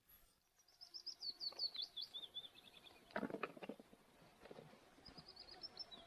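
A small songbird singing faintly: a quick string of high notes that step down in pitch, heard twice. Brief faint knocks come in between.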